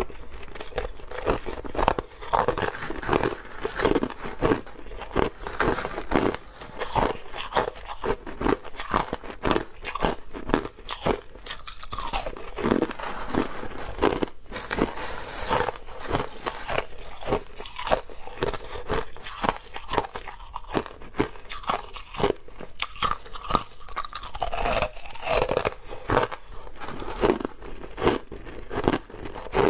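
Clear, hard crushed ice being bitten and chewed close to the microphone: a continuous series of sharp, irregular crunches, several a second.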